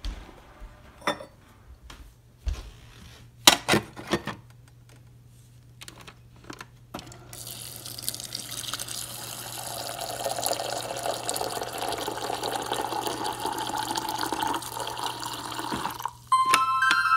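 Hot water streaming from a refrigerator door dispenser into a ceramic mug for about nine seconds, starting about seven seconds in, its pitch rising slightly as the mug fills, over a steady low hum. A few sharp clicks and knocks come first, about three and a half seconds in, and chiming music begins near the end.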